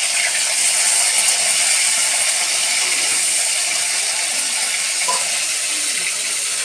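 Tilapia steaks sizzling steadily as they shallow-fry in hot oil in an aluminium kadai.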